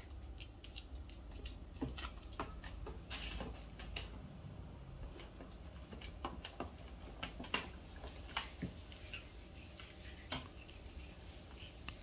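Scattered light clicks, taps and rustles as a small dog moves about and settles inside a plastic pet carrier lined with a pee pad, over a faint low hum.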